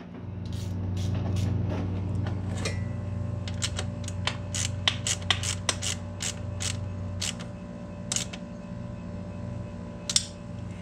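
Hand working at wiring and parts behind the alternator in a car's engine bay: a run of sharp clicks and taps, about three a second from roughly three and a half to eight seconds in, over a steady low hum.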